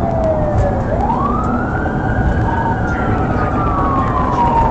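Police car siren on wail: the pitch sweeps up about a second in, then falls slowly over the next few seconds, above steady engine and road noise.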